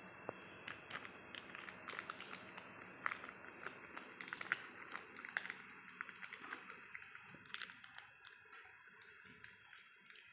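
Butter paper crinkling and crackling as it is peeled away from the set chocolate lattice on the side of a cake. The sound is a faint run of small, irregular clicks that thins out near the end.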